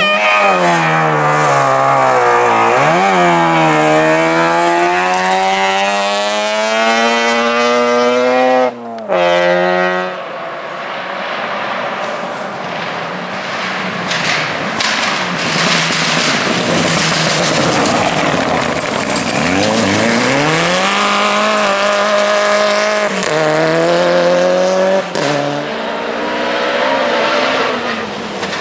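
Classic rally car engines accelerating hard under load, the pitch climbing steadily with a brief drop about three seconds in for a gear change, then cutting off abruptly. After a stretch of engine and road noise with no clear pitch, another car pulls away, rising in pitch and changing up twice.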